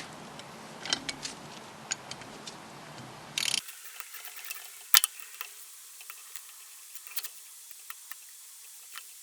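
Hand tools working bolts on a cast Mini cylinder head: scattered ratchet clicks and sharp metal clicks, with one louder click about five seconds in.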